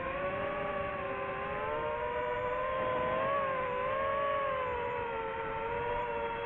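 DJI FPV quadcopter's motors and propellers whining in flight, the pitch wandering up and down as the throttle changes, rising a little about three and four seconds in. The sound is dull, with the highs missing.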